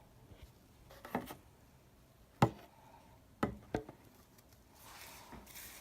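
A few sharp, light clicks and taps from a small plastic eyeshadow compact and its pan being handled, then a faint rustling hiss near the end.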